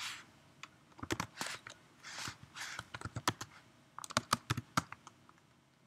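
Typing on a computer keyboard: scattered single keystrokes and short quick runs of clicks, the busiest run about four seconds in, ending with a last key press.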